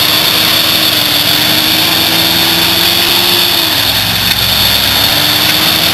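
Off-road pickup truck's engine pulling at low revs as it crawls up a rock ledge, its pitch rising slightly, dropping back a little past halfway as the throttle eases, then climbing again before falling once more near the end.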